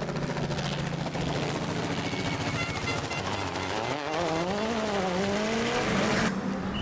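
Rally car engine running hard on a stage, steady at first, then its pitch rising and falling with throttle and gear changes from about halfway through.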